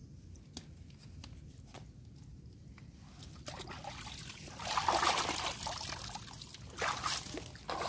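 Creek water splashing and pouring off a plastic mesh eel trap and a man's rain gear as he lifts out of the water, after a few faint clicks. The pouring starts about halfway through, is loudest soon after, and surges briefly again near the end.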